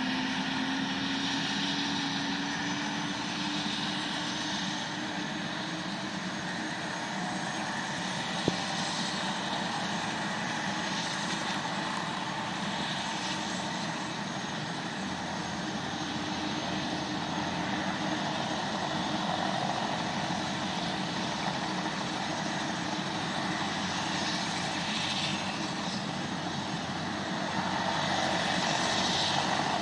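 Airbus H125 helicopter's Arriel 2D turboshaft running on the ground with its rotor system turning, a steady turbine and rotor noise. A tone within it rises slightly in pitch over the first several seconds, and there is one sharp click about eight seconds in.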